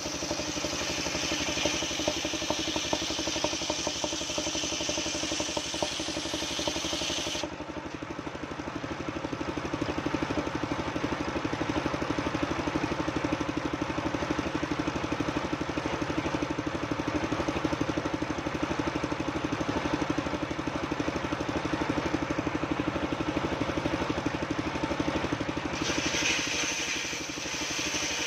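Portable engine-driven circular sawmill running steadily as it saws old coconut-palm wood. A bright, high rushing sound is laid over the engine for roughly the first seven seconds and again near the end, with only the engine and blade running in between.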